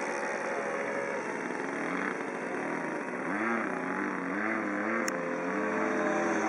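ASP 91 four-stroke model engine of a radio-controlled P-47 Thunderbolt running in flight. From about halfway through, its pitch wavers up and down several times as the plane manoeuvres.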